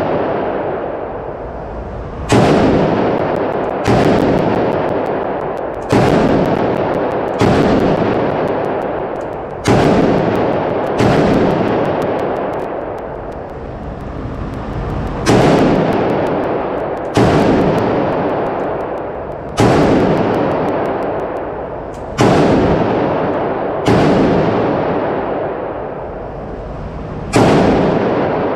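Arsenal SAM7R, an AK-pattern rifle in 7.62×39 mm, fired as about a dozen single shots at a steady slow pace of roughly one every two seconds, with a pause of about four seconds midway. Each shot rings on in a long echo from the indoor range that dies away before the next.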